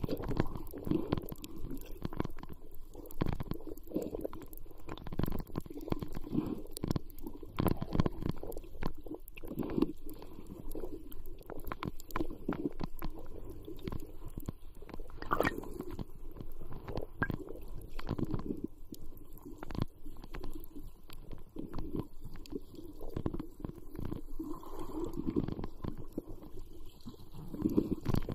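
Muffled sound picked up by a camera underwater: a constant low, uneven rumble of water moving around the camera, with many scattered sharp clicks.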